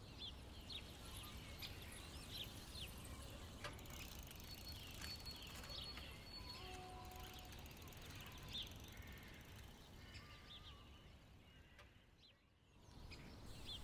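Faint outdoor ambience with a few distant bird chirps scattered through it.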